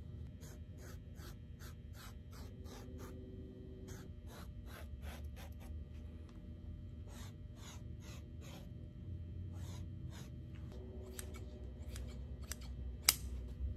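A sheet of 1-inch polyfoam being marked and cut to the oval of a chair back: short, evenly spaced scratchy strokes, about four a second, in three runs. A single sharp click near the end.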